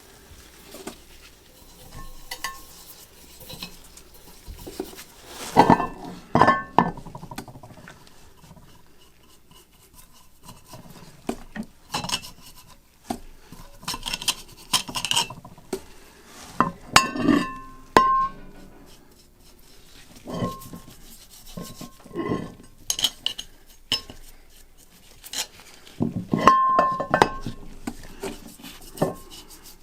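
Metal objects clinking and knocking together in a workshop, some strikes leaving a brief ring, with the loudest clusters about six, seventeen and twenty-six seconds in.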